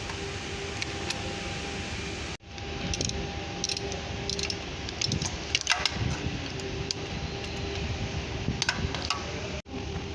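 Metal tool clinks and ticks from a 24 mm box wrench working a bolt on the transmission, scattered irregular clicks over a steady background hum.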